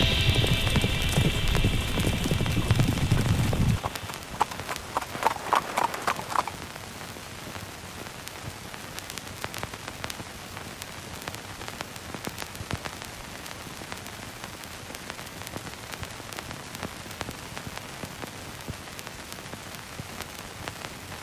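Horse hooves clip-clopping, a quick run of strikes about three or four a second lasting a couple of seconds, after a low rumble that stops abruptly about four seconds in. Then a faint, steady crackling hiss.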